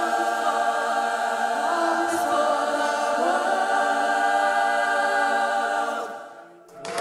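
Mixed soul choir holding a long final chord, the inner parts moving to new notes twice before the chord is released about six seconds in.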